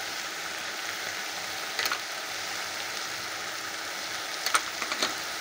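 Spinach, fenugreek and potatoes sizzling steadily in a non-stick kadai, a soft even hiss of vegetables cooking. A few faint ticks come through about two seconds in and again near the end.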